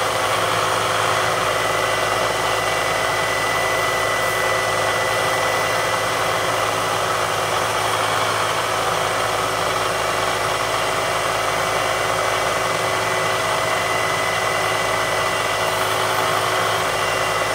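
Milling machine spindle running steadily while a drill bit cuts into aluminium plate: a constant hum with a thin, steady high whine.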